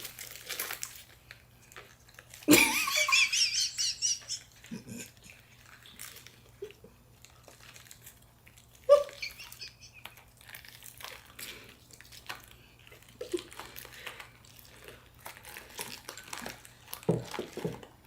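Close-up eating sounds: soft chewing, small mouth clicks and crinkling of the rice-paper spring rolls. About two and a half seconds in comes a brief, high, wavering vocal sound, the loudest thing here, and another short sound follows near the middle.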